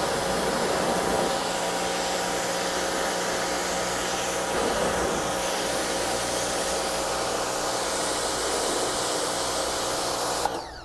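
Rock & Rocker 3000 PSI electric pressure washer running under load: a steady motor hum under the hiss of the 15-degree spray striking concrete. It cuts off near the end as the trigger is released.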